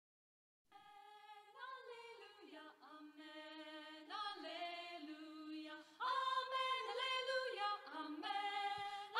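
Closing music starts about a second in: a choir singing unaccompanied, growing louder about six seconds in.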